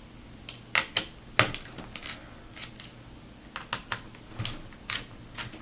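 Irregular small clicks and ticks of a screwdriver turning the spring-loaded screws that hold a laptop's thermal cooling module, loosening them a few turns each.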